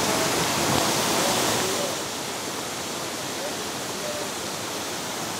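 Rushing water of a muddy river in spate, running fast over rocks below a small waterfall after a night of torrential rain; a steady rush that drops a little about two seconds in.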